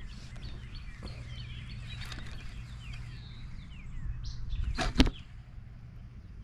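Faint birds chirping, with a low rush building up and one sharp click about five seconds in.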